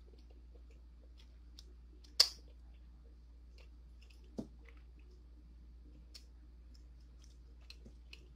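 Eating sounds: a metal spoon clicking against a plastic food container and soft chewing of pork souse and rice. One sharp spoon click about two seconds in is the loudest sound, with a duller knock a couple of seconds later and scattered small clicks throughout.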